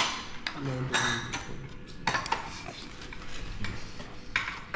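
Cutlery clinking and scraping against plates during a meal: a string of irregular sharp clinks, with a brief voice about a second in.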